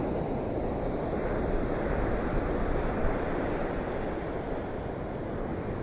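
Storm wind rushing across the microphone with surf breaking, a steady low-pitched noise that swells in gusts a second or two in. The wind and waves are driven by a hurricane.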